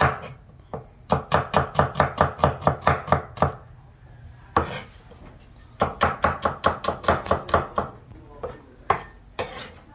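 Cleaver chopping red onions on a thick round wooden chopping block. It comes in two quick runs of chops at about five a second, with a single chop in the pause between them, then a few scattered chops near the end.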